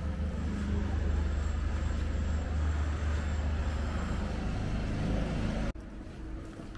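Background noise from a camera being walked through a shopping-centre entrance: a loud, steady low rumble. It cuts off abruptly about five and a half seconds in, and quieter town-street background noise follows.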